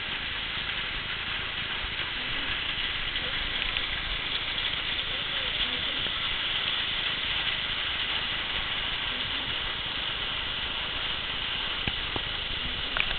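Hail and rain falling in a steady hiss.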